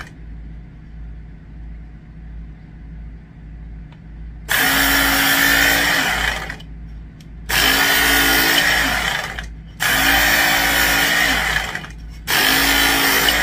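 Work Sharp Knife and Tool Sharpener's electric belt motor switched on for four short sharpening passes of about two seconds each, with a steady motor hum and the belt grinding against a knife blade, after a quieter first few seconds.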